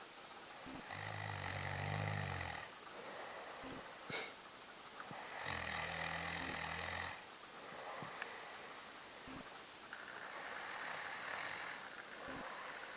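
A man snoring in his sleep: two long, low snores about four seconds apart, then a softer, breathier one near the end. A short sharp click falls between the first two snores.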